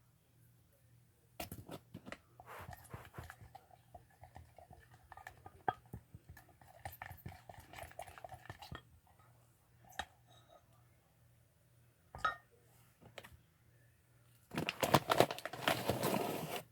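Sugar being added to a toothpaste slime mixture and stirred in, with scattered clicks and gritty scraping. A louder two-second burst of scraping comes near the end.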